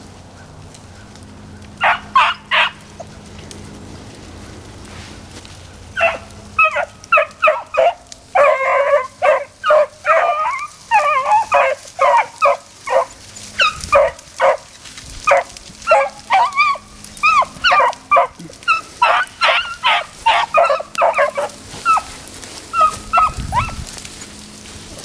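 Beagles baying on a rabbit's trail. A few short yelps come about two seconds in, then from about six seconds a fast, overlapping string of barks runs until near the end. This is the pack giving tongue on the scent during the chase, which hunters call hound music.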